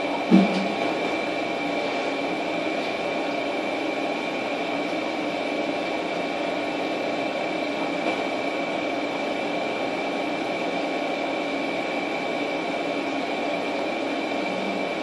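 Steady machine hum with a constant high whine, and one short knock about half a second in.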